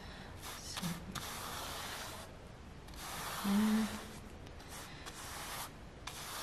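Wide flat paintbrush scrubbing blue paint across a stretched canvas in about four long strokes with short pauses between them. A short hummed vocal sound comes about three and a half seconds in.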